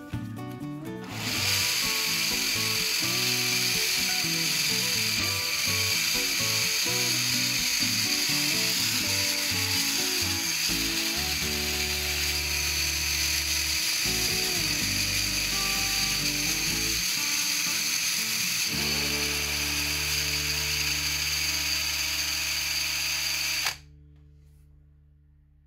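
Cordless drill spinning a 3D-printed ABS planetary gear bearing at speed: a steady mechanical whir and whine of motor and meshing plastic gears, starting about a second in and cutting off suddenly near the end.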